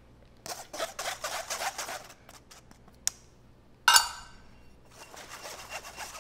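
Measuring spoon scraping in a glass jar of baking soda, then a sharp clink with a short metallic ring about four seconds in. From about five seconds a spoon rubs dry flour and cocoa through a fine-mesh metal sieve in quick, even strokes.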